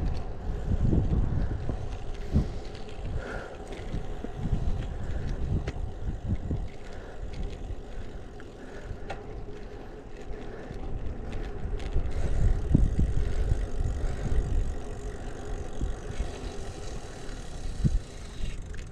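Road bike being ridden on asphalt: wind rumbling on the microphone over steady tyre noise, rising and falling, with occasional light clicks and rattles.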